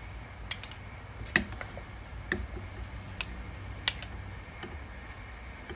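Metal spoons clinking against each other and the pot as cooked taro is crushed between them in a pot of chicken soup: about six sharp taps at irregular intervals, the loudest about a second and a half in, over a low steady hum.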